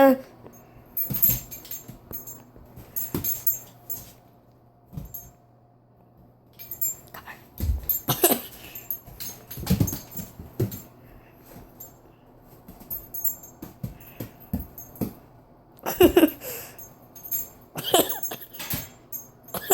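A dog's short breathy noises and scuffling clicks in irregular bursts, with quiet gaps between.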